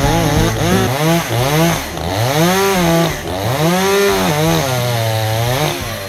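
ECHO CS-620P chainsaw's two-stroke engine running hard, its pitch repeatedly rising and falling about once a second.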